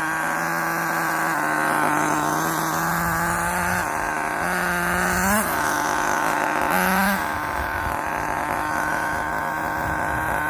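Small two-stroke RC car engine running at a steady, fast idle, revved up briefly twice in the middle. The idle is high enough that the clutch drags and the car creeps.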